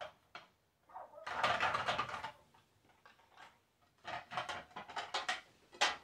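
Dishes and table-setting pieces being handled and set down: a rustling clatter about a second in, then a quick run of light knocks and clinks near the end.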